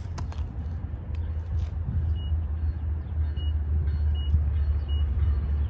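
Low, steady engine rumble, growing a little louder, with four short high-pitched beeps from about two seconds in.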